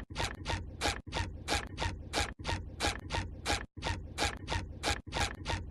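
Footsteps crunching at a brisk pace, about four sharp crunches a second.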